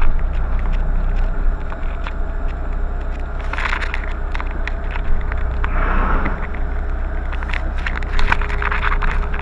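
Steady low rumble of a car's interior, with many sharp clicks and a few louder rustling scrapes of a small handheld camera being moved and knocked about.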